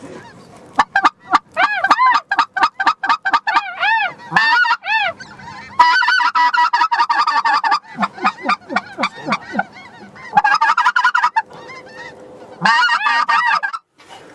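Goose calling in several loud bursts: quick runs of short honks and clucks, then longer strings of held honks, typical of a hunter's goose call worked at birds in the air.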